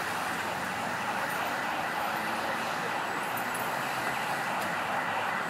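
Steady street traffic noise, an even rush of vehicles with no distinct event.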